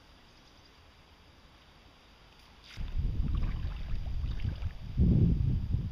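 Camera handling noise: a small click, then a loud, uneven low rumble on the microphone starting about three seconds in, loudest about five seconds in.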